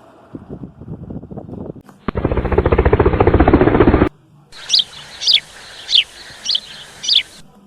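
A bird chirping five times in quick falling notes, preceded by about two seconds of a loud, rapid pulsing noise; the pieces start and stop abruptly like edited-in sound effects.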